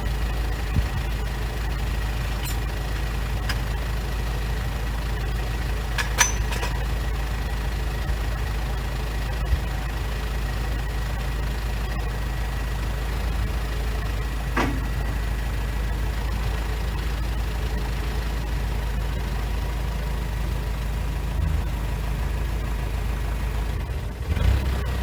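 Engine running steadily, with a few short sharp knocks or clicks over it.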